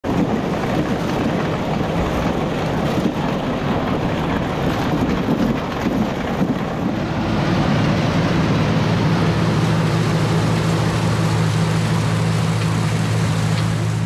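Tractor engine running steadily. For the first several seconds a dense rushing noise covers it; from about eight seconds in, a steady low engine drone is plain.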